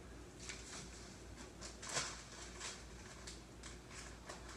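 Faint, irregular clicks and taps of small plastic containers and utensils being handled, the clearest about two seconds in.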